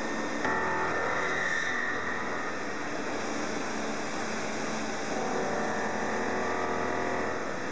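IBERIMEX-MVR ECOMILL BF-2600 CNC bed milling machine running, with a steady machine noise. About half a second in, a motor hum and a whine of several steady tones come in, and they stop shortly before the end.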